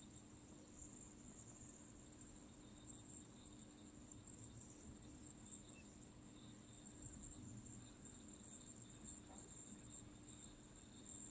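Near silence: faint room tone with a steady high-pitched whine and a low hum.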